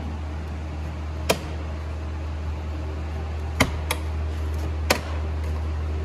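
Plastic clips of a Ford Explorer's door switch-panel trim cover popping loose as it is pried off: four sharp clicks spread over a few seconds, two of them close together, over a steady low hum.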